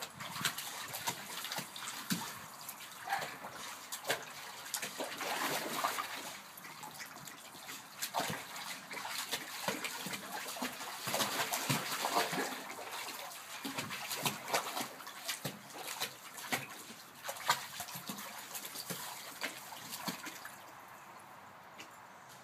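A puppy splashing about in a shallow kiddie pool, with irregular splashes and sloshing water throughout.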